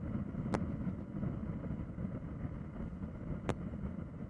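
Steady low rumble of engine and wind noise, as heard from an aircraft in flight, with two faint sharp clicks about half a second in and about three and a half seconds in.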